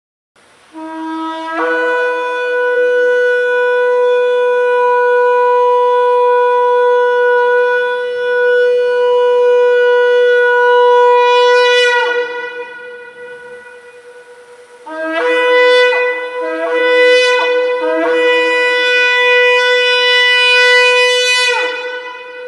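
Shofar blown: a long blast that steps up from a lower note to a held note for about ten seconds and ends with a drop in pitch. After a short pause come three short broken blasts and then a second long blast, which also falls away in pitch at its end.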